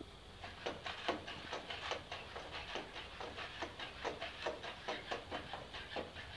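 NAO humanoid robots' joint servo motors whirring in short bursts as they step and turn, several pulses a second, starting about half a second in.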